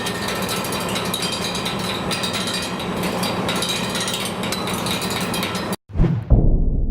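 Dense, continuous clattering and banging from a crowd of protesters' noisemakers. It cuts off abruptly near the end, and a heavy low thump follows.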